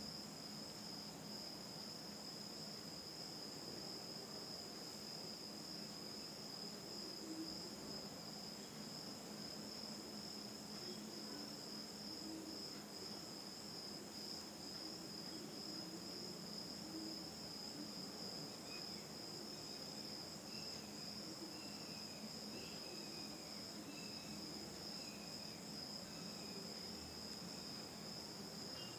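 Steady high-pitched insect chirring in the background, with a faint low steady hum under it.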